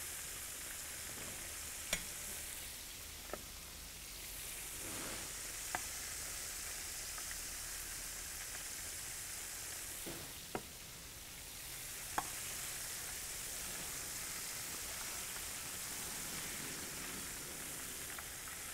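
Catfish fillets deep-frying in hot oil in a steel fryer bowl: a steady sizzle, the fish nearly done and floating. A few sharp taps of the metal wire strainer and ladle knock against the pot.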